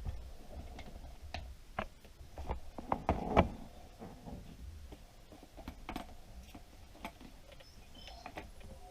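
Scattered light clicks and knocks of tools and parts being handled during work on a radio-controlled truck's suspension, the loudest a little over three seconds in, over a low steady hum.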